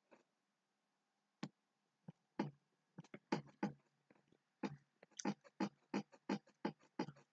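Computer mouse clicking, a run of short, irregular clicks that come faster in the second half, as paint is dabbed on one click at a time.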